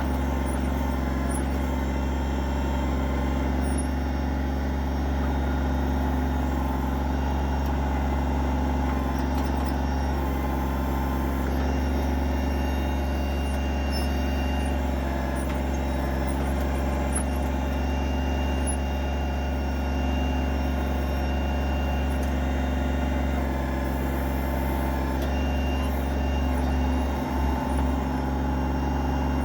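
Kubota BX25D compact tractor's three-cylinder diesel engine running steadily while it powers the backhoe.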